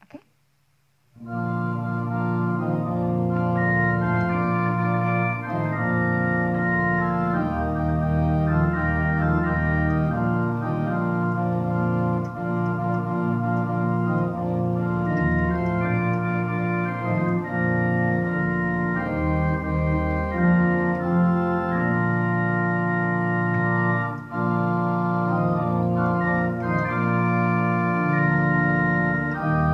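Church organ playing a hymn in held chords, coming in about a second in after a short pause.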